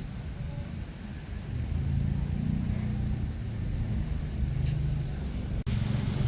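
Low, steady rumble of the KA Argo Bromo Anggrek train, with faint short high chirps scattered over it. A brief dropout breaks it near the end.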